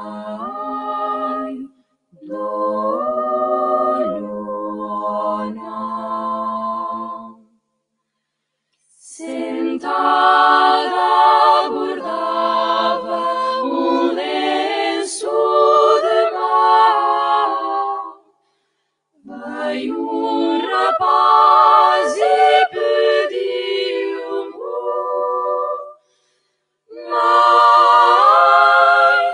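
Six-woman vocal ensemble singing a cappella, several voices in harmony, in phrases separated by short breaths of silence. The opening phrases are softer; the singing grows fuller and louder from about nine seconds in.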